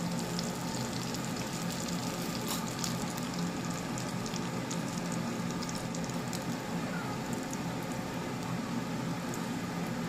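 Breaded cutlets shallow-frying in hot oil in a pan: a steady sizzle with scattered pops and crackles.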